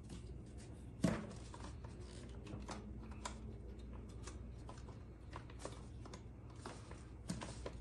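Small plastic clicks and rattles as white plastic connectors are pushed onto the metal tube ends of a closet shelf rack, with one louder knock about a second in.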